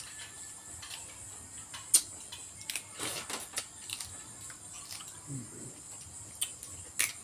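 Sparse eating and food-handling sounds at a shared tray: a few sharp clicks and a short crunchy rustle as raw pickled shrimp and fresh vegetables are picked up and bitten, with a brief low hum from a mouth about five seconds in, over a steady faint hiss.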